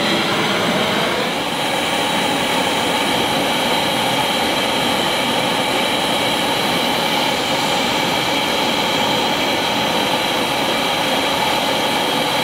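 LPG gas torch with an aerating nozzle, fed from a 9 kg bottle through a regulator, burning with a loud, steady rushing flame.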